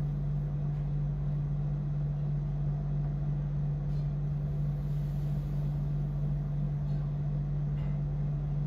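A steady low background hum, unchanging throughout, over a faint hiss, with a couple of faint light clicks.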